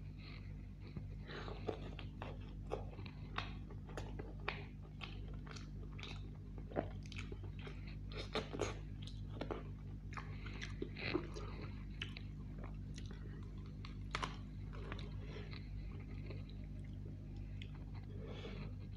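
Close-miked chewing and biting of roast chicken dipped in yogurt sauce: irregular wet smacks and crunches, several a second, over a steady low hum.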